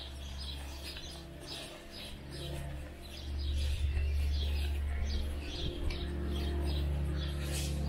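Small songbirds chirping over and over in quick short notes, over a steady low rumble that grows louder about three seconds in.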